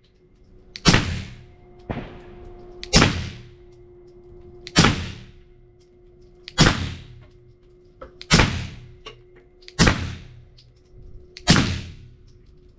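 Suppressed 9mm Glock pistol firing through a Griffin Armament Resistance suppressor, seven shots about one every one and a half to two seconds, each followed by a short echo. Still loud enough that the shooter doubts it is hearing safe.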